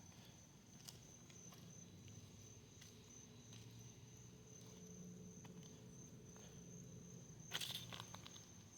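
Faint ambience: a steady high-pitched insect drone, with a few soft steps or ticks and a short louder rustle or scuff near the end.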